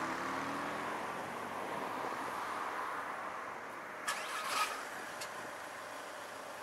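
A motor vehicle's engine fades away under steady road and wind noise, with two sharp clicks about four seconds in and a fainter one a second later.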